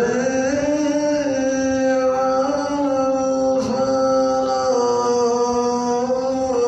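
A muezzin chanting the Islamic call to prayer (adhan) in a male voice, drawing out one long note with small wavers that slips lower near the end.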